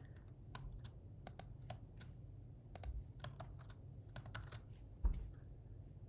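Computer keyboard typing: irregular clusters of keystrokes, with one louder low thump about five seconds in.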